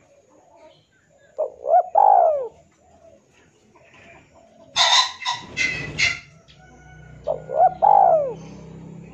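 Male spotted dove cooing twice, each phrase two short coos followed by a longer arching coo. Between the two phrases comes a harsher, higher series of calls from another bird.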